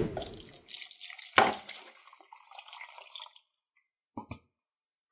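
Beef broth poured from a can into a plastic deli container, splashing and dripping, with a thud at the start and a sharp knock about a second and a half in.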